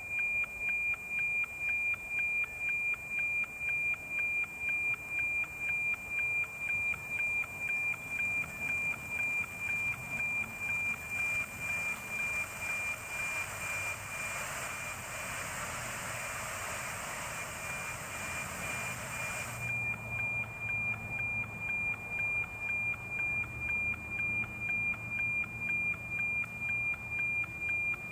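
NOAA 19 weather satellite's APT image signal, received by an RTL-SDR and played as FM-demodulated audio: a steady high whistle with a tick-tock beat about twice a second, one per scan line. Partway through, the ticking sinks under hiss as the signal weakens, then snaps back clear about twenty seconds in.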